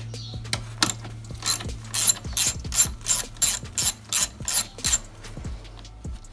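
3/8-inch-drive ratchet on a long extension with an 8 mm socket, clicking rapidly as it works an 8 mm bolt loose. The clicks come at about three a second for some four seconds, then stop.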